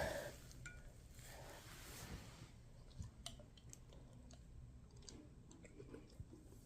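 Faint, scattered clicks and soft smacks of a large dog chewing a piece of sardine.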